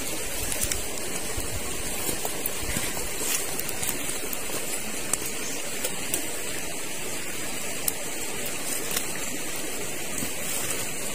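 Steady rushing of a forest stream, with a few faint clicks scattered through it.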